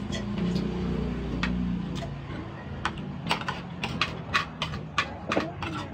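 Cutlery clinking and scraping on plates, a quick irregular run of sharp clicks starting about three seconds in. A low steady rumble fills the first two seconds.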